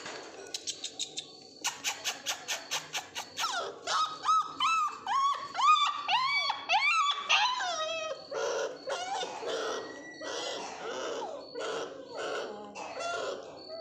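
Mudhol hound puppies whining and yelping: a quick run of short cries that rise and fall in pitch, then rougher, lower whimpers. A rapid series of clicks comes first.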